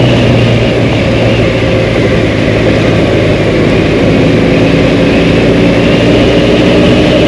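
Dual-sport motorcycle engine running steadily while riding along a dirt road, with wind rumbling over the microphone.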